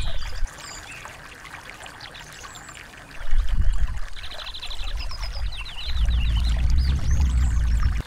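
Small stream trickling and splashing over rocks, with a deep rumble that drops away about half a second in and swells back twice. Small songbirds chirp over it, with a quick rapid trill about halfway through and a run of short chirps after it.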